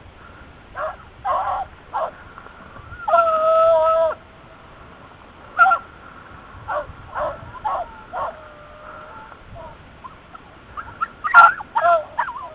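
Beagles baying as they run a rabbit: a string of short yelps, one long drawn-out bay about three seconds in, and a burst of yelps near the end.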